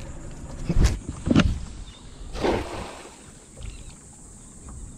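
Two sharp knocks, then a short splash as a cast net lands on the water, followed by quiet water noise while the net line is held.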